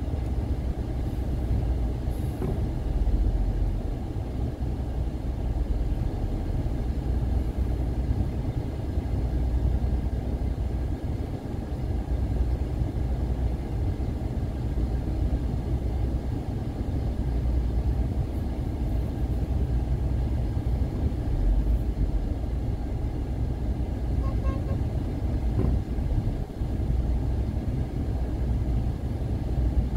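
A car being driven: a steady low rumble of engine and tyres on the road, with no sudden events.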